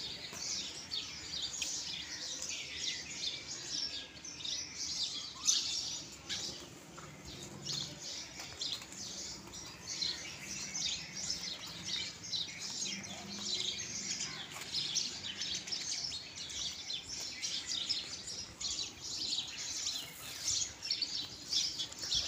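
Many small birds chirping at once: a dense chatter of quick, high, overlapping calls.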